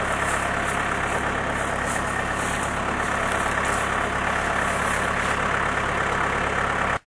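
Engine of the loader carrying the hydraulic post driver, idling steadily, with no blows from the anvil; the sound cuts off suddenly near the end.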